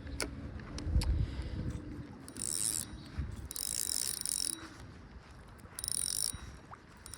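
Fishing reel whirring in three short bursts, the middle one the longest, with some low thumps of handling.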